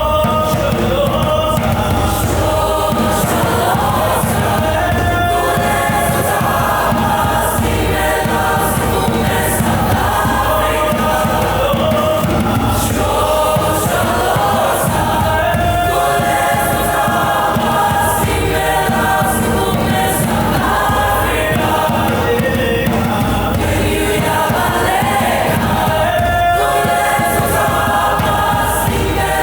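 A choir singing in parts over an accompaniment with a steady beat.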